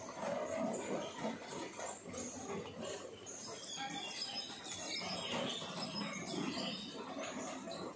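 Small birds chirping, a cluster of short high calls through the middle, over a steady background of street noise.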